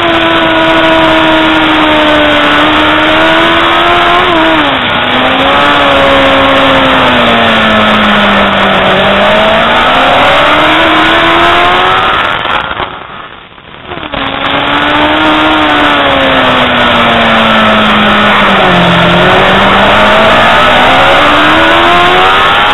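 Racing superbike engine heard onboard at speed, its note falling and rising with throttle and gear changes through the corners, over a steady rush of noise. The sound drops away briefly about halfway through.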